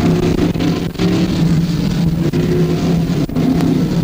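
Stock car engines running at a speedway, a loud steady drone with two brief dips, about a second in and past the three-second mark.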